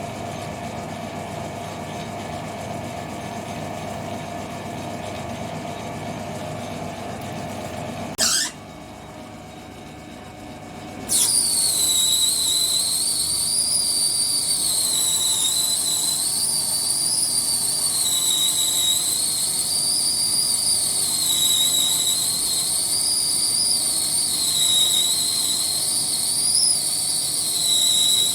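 A metalworking machine tool runs with a steady hum and a tone, then stops about eight seconds in. After a short pause a loud high-pitched squeal starts and holds, its pitch wavering slowly up and down, typical of a cutting tool squealing or chattering on metal.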